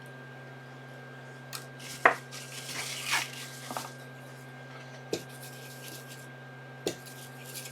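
Small tools being handled on an electronics repair bench: a few sharp clicks and taps, the loudest about two seconds in, with a brief stretch of scraping or rubbing. A steady electrical hum runs underneath.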